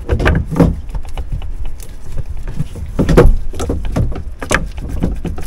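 Knocks, clunks and scraping as a starter motor is pushed and worked into its seat in a Kawasaki jet ski engine block, its rubber seals oiled to ease it in. The heaviest clunk comes a little past three seconds in.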